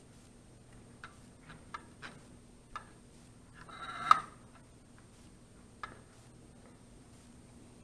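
Small plastic clicks and taps from handling an opened drone controller's housing and circuit board: a handful of scattered clicks, with a short scraping and a sharp, louder click about four seconds in.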